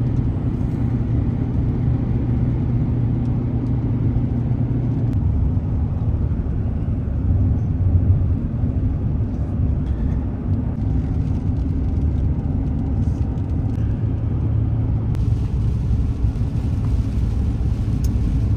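Steady low rumble of a vehicle's engine and tyres, heard from inside the cab while driving.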